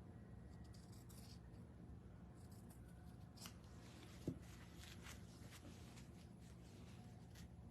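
Near silence with faint rustling of craft materials being handled, and one soft click about four seconds in.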